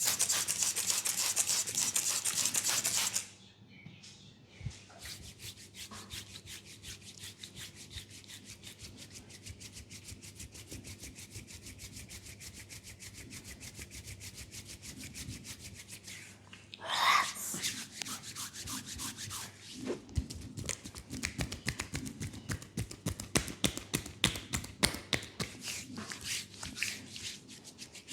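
Hands massaging a bare leg, skin rubbing on skin. It opens with about three seconds of loud rubbing, goes on as fast, light strokes, and in the second half turns to sharper tapping or slapping strokes.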